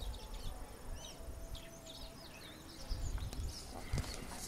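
Small birds chirping and twittering in quick, varied calls over a low rumble, with a couple of soft knocks near the end.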